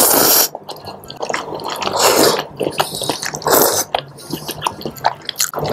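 Noodles being slurped into the mouth in several short, loud sucking bursts, with wet chewing and mouth clicks between them.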